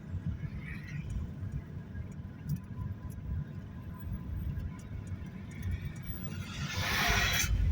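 Outdoor road traffic: a steady low rumble, with a vehicle passing close by near the end, its hiss swelling to the loudest point.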